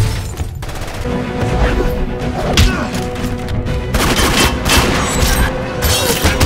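Film soundtrack of a rapid series of pistol shots, densest in the second half, over dramatic score music.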